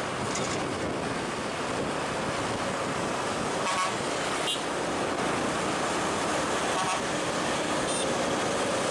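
Steady vehicle engine and traffic noise with wind on the microphone, broken by a few brief high tones about four seconds in and again near the end.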